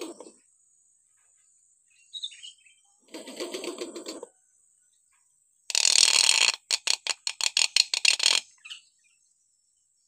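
Hill myna calling: a short note about two seconds in and a harsh rasping call a second later, then a loud screech followed by a fast run of about a dozen sharp clicking notes.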